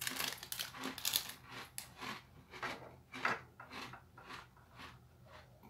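Chewing a dry, crunchy white-chocolate cookie: a steady run of crunches, about three a second, that grow fainter as the bite is chewed down.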